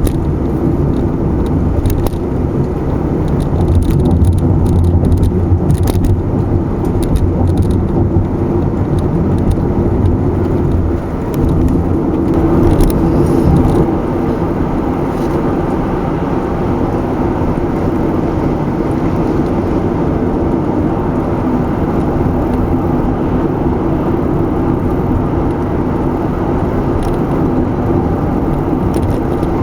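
A car driving on the road: a steady rumble of tyres and engine, with a few faint clicks in the first several seconds.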